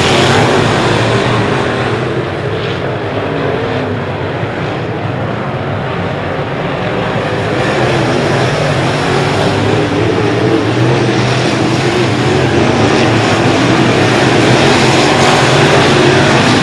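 Dirt late model race cars' V8 engines running hard around a clay oval, several cars at once; the sound eases off a couple of seconds in and builds again as the cars come back around.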